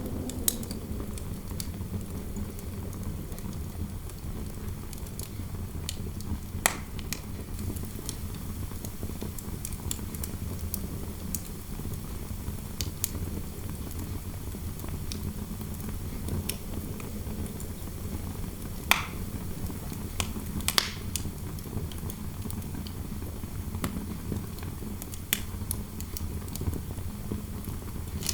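Fireplace fire crackling, with sharp pops at irregular intervals over a steady low rumble of interior wind noise.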